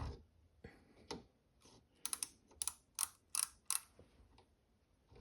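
Micrometer's ratchet thimble clicking as it is turned down onto the workpiece to take a measurement: a few scattered clicks, then a quick run of about seven sharp clicks, roughly three a second.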